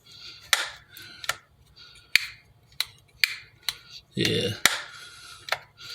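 A series of about eight or nine sharp, irregular clicks from wall switches being handled and flipped. A brief bit of voice comes about four seconds in.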